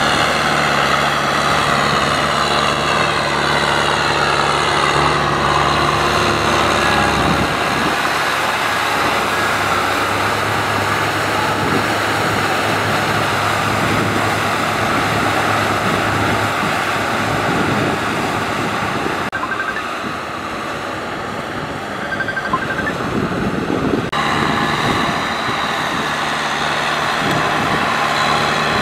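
Kubota M6040SU tractor's four-cylinder diesel engine running steadily under load as it drags a rear rotary tiller through flooded paddy mud. The sound drops in level for a few seconds past the middle, then comes back.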